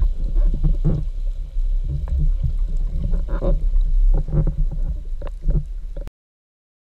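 Muffled underwater noise picked up through an action camera's waterproof housing: a steady low rumble with scattered knocks and clicks, cutting off about six seconds in.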